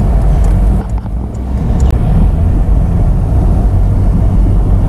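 Low, steady rumble of a car's engine and tyres heard from inside the cabin while driving, dipping briefly about a second in.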